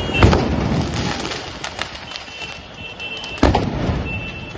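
Firecrackers going off in burning stalls: two loud bangs, one just after the start and one near the end, with scattered sharp pops and crackles between them.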